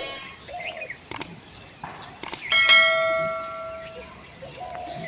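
Two sharp clicks, then a single bell ding that rings out and fades over about a second and a half. Faint bleating sounds underneath.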